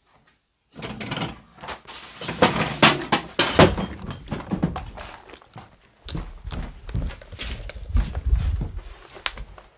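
Close knocking, rubbing and clattering of the camera and gear being handled. From about six seconds in come heavy low thuds of footsteps over a floor strewn with debris.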